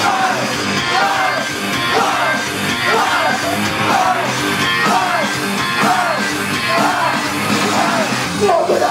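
Loud live pop-rock music with singing and shouted vocals over a full band, and a rising-and-falling melodic figure repeating about once a second.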